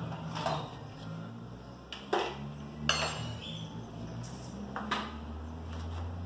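A few short, sharp metallic clinks and knocks from hand work on a pickup's tailgate trim and tools, the loudest about three seconds in, over a low steady hum.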